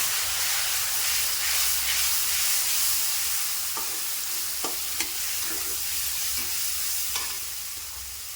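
Onions, spices and garlic paste sizzling in hot mustard oil in a pan while they are stirred, with a utensil clicking and scraping against the pan now and then. The sizzle eases a little near the end.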